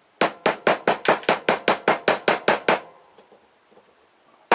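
Hammer tapping rapidly on a salvaged circuit-board part, about fifteen quick even strikes, around six a second, for two and a half seconds, then stopping.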